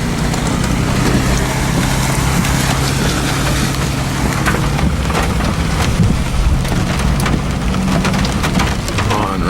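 Heavy rain pelting the roof and windshield of a Jeep, heard from inside the cabin as a dense patter of drops, with the engine's steady low hum underneath.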